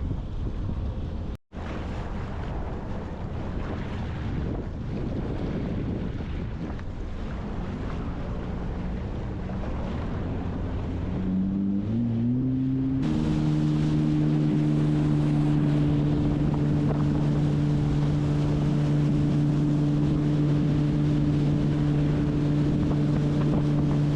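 Sea-Doo personal watercraft underway, with wind on the microphone and water rushing. About eleven seconds in, the engine pitch rises as it speeds up, then holds steady at speed.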